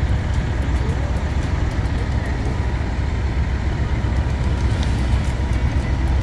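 Steady low rumble of a moving vehicle, with road and wind noise.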